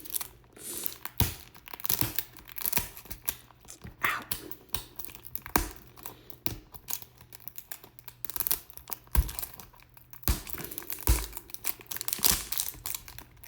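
Plastic wrapping being torn and peeled off a toy package, crinkling and crackling irregularly.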